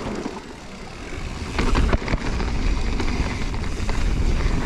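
Mountain bike rolling fast down a rocky and dirt trail, with tyre noise, the bike rattling and knocking over the bumps, and wind rumbling on the camera's microphone. It gets louder about two seconds in as the bike picks up speed.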